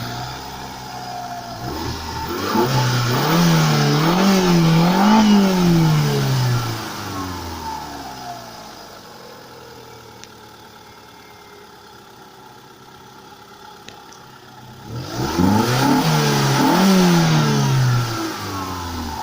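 BYD F3's 1.6-litre four-cylinder petrol engine being revved with the car standing. The engine rises in two quick blips a few seconds in and drops back to a steady idle, then is revved once more about fifteen seconds in and falls back toward idle near the end.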